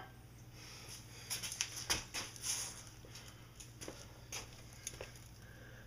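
Light handling and movement noises: scattered faint clicks and taps over rustling, as a person moves about and gets up from beside a motorcycle's front wheel.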